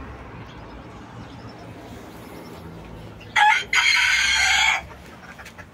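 A rooster crows once, a loud crow lasting about a second and a half, starting a little past halfway. Before it there is only faint background.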